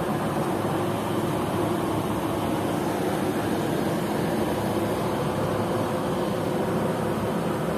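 Steady background noise of a large shop: an even hum and hiss from fans and ventilation with no separate events.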